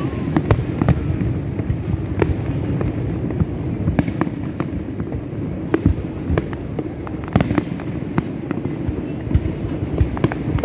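Fireworks display: a continuous low rumble of distant booms, with sharp bangs and crackles going off at irregular intervals, several every second.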